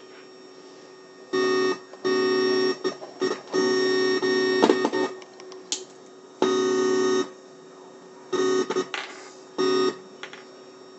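Weird Sound Generator, a DIY analog synthesizer, playing buzzy electronic tones with many overtones. The tones switch on and off in bursts of half a second to about two seconds, with short gaps of faint hum between them.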